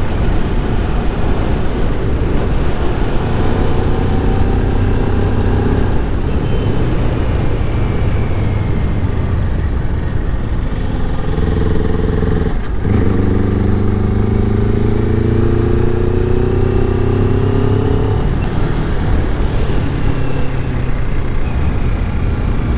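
Kawasaki Ninja 400's parallel-twin engine running under way on the road. Its note climbs slowly in pitch twice, with a short break near the middle, over a steady low rumble of wind and road noise.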